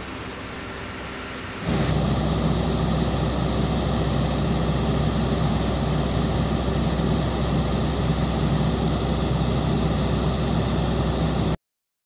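Dasmesh 726 combine harvester running steadily, a deep engine hum under a rushing noise, while its unloading auger pours paddy into a trailer. A quieter machine hum comes first, then the sound jumps much louder less than two seconds in and cuts off suddenly near the end.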